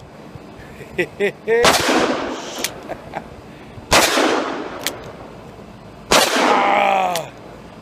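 Two .44 Magnum revolvers, a Colt Anaconda and a Smith & Wesson Model 629, fired together, three times about two seconds apart, each double shot followed by a long ringing tail. A man's voice exclaims over the tail of the third.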